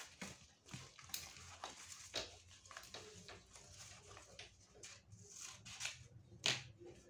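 Soft rustling, scraping and clicking of a cast bandage being unrolled and cut with scissors, with one sharper click about six and a half seconds in.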